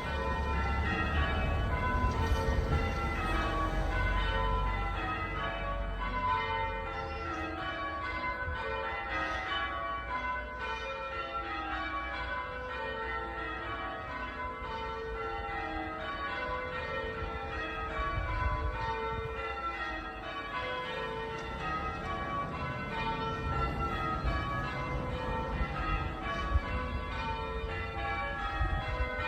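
The front five of a ring of eight Taylor-cast church bells ringing in steady, repeating descending rows of strikes, typical of English change ringing. A low rumble lies under the first few seconds.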